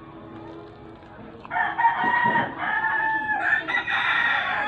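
Rooster crowing loudly: one long crow that starts about a second and a half in and lasts about three seconds.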